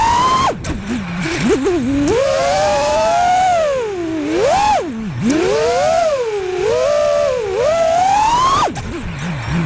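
FPV freestyle quadcopter's brushless motors (2306, 1960kv on 6S) spinning three-blade props, whining and sweeping up and down in pitch as the throttle changes. The pitch drops sharply about half a second in and again near the end as the throttle is chopped, going to a low warble before climbing again.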